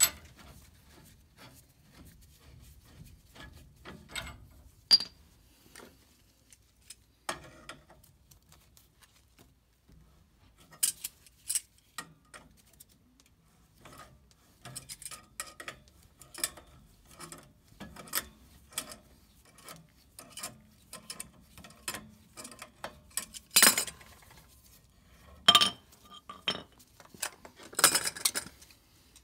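Metal tools clinking, knocking and scraping against threaded steel gas piping as the pipe is wrenched loose and unscrewed from a furnace gas valve. The sounds are scattered short clicks with a brief ringing ping about five seconds in, and a louder run of clatter near the end as the pipe comes off.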